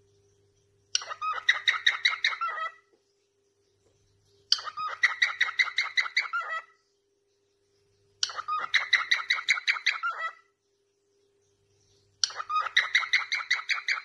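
Cockatiel singing in four bursts of about two seconds each, every burst a fast run of short repeated notes.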